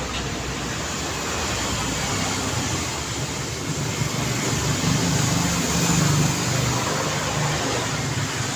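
Busy city street traffic: a steady wash of engines and tyre noise, with one vehicle's engine hum swelling as it passes close, loudest about five to six seconds in.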